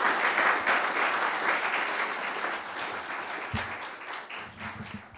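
Audience applauding, loudest at first and gradually fading.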